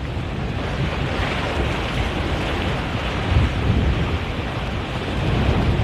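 Wind buffeting the microphone in a steady low rumble, over the rush of waves and surf.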